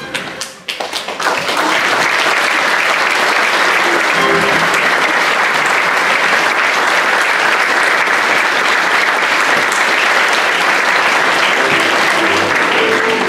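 Audience applause: a few scattered claps as the music stops, swelling within about two seconds into steady, full applause.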